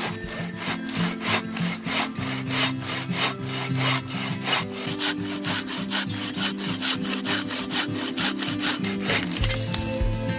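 Agawa Canyon Boreal 21 folding saw cutting through a dead log in fast, even back-and-forth strokes, about three a second, stopping near the end.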